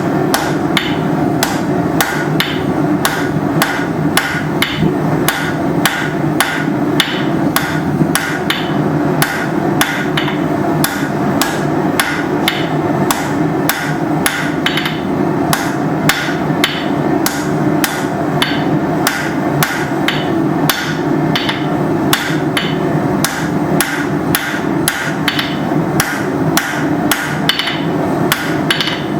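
Hammer striking hot steel on an anvil in a steady rhythm of about two blows a second, drawing the end of a bar out into a pointed taper. A steady low background noise runs under the blows.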